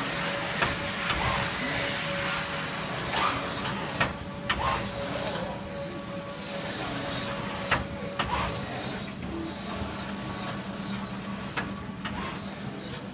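Minipack Pratika 56 T MPS film-wrapping and sealing machine running, with a steady motor hum and a constant tone. A sharp clack comes every few seconds, and short hisses follow two of them, as the machine cycles through each pack.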